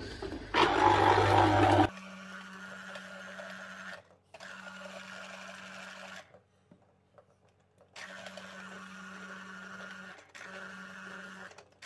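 Electric citrus juicer motor running in spurts, a steady hum that stops and restarts several times as fruit is pressed onto the reamer. A louder, rougher burst of about a second comes near the start.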